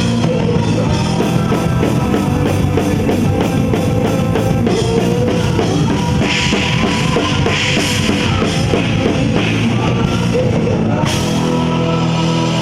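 Rock music played live: a drum kit drives a fast beat, with a burst of cymbal wash a little past the middle, over sustained guitar and bass tones.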